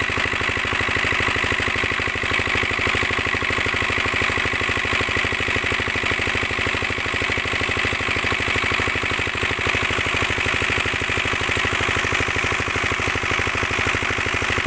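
A shallow tube-well pump's single-cylinder diesel engine running steadily with even beats. Water gushes from the pump's outlet pipe and splashes into a trough.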